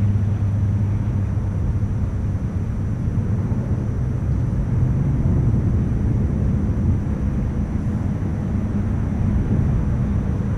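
A steady low motor drone holding an even low pitch with a slight waver, over a rumble.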